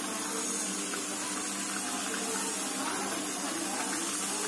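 Potatoes and tomatoes cooking in oil in a kadhai on a gas stove, giving a steady sizzling hiss.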